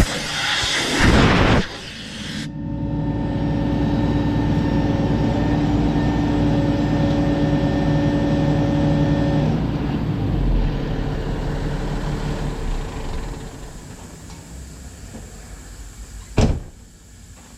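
A blower blasting air to clean leftover hay out of a hay baler, then its engine running on steadily before dying away. A single sharp knock comes near the end.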